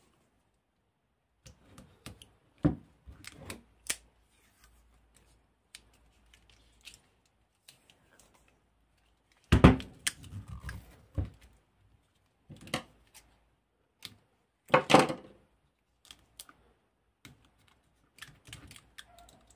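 Black electrical tape being pulled off the roll, torn and pressed around a lithium-ion battery pack's wiring and plastic cell holders. Scattered small clicks and crackles, with louder bursts of handling noise about halfway through and again about three quarters through.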